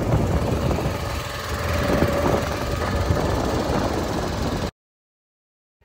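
Motorboat engine running steadily, heard from on board over a dense rushing noise. The sound cuts off abruptly about three-quarters of the way through.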